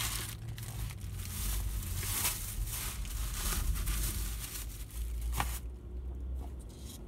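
Paper sandwich wrapper rustling and crinkling as it is folded up and handled, with sharp crackles, over a low steady hum. The rustling stops about five and a half seconds in, leaving a few light clicks.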